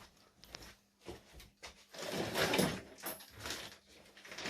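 Handling noise from airsoft gun parts: a few light clicks, then scraping and rubbing as pieces are moved against each other.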